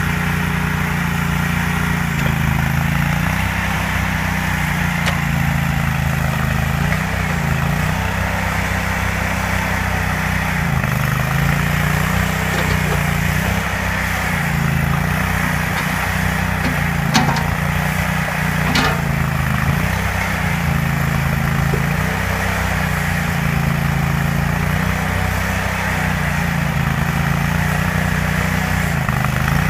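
A portable backhoe's Briggs & Stratton Vanguard gasoline engine running steadily, its pitch dipping briefly every few seconds as the machine is worked. Two sharp clanks come about two-thirds of the way through.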